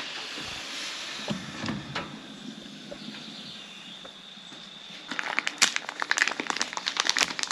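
A steady hiss from a kettle heating on a gas stove, then, about five seconds in, a packet of yerba mate crinkling rapidly as it is torn open.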